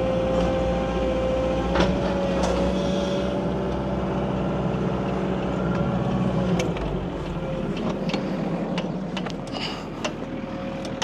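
Wacker Neuson ET65 mini excavator running with a steady high whine over the engine as the machine works. The whine eases off about two-thirds of the way through, leaving the engine running with a few clicks and knocks.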